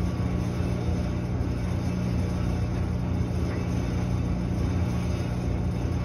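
Samsung clothes dryer running, its drum tumbling a load of laundry: a steady low hum and rumble that holds even throughout.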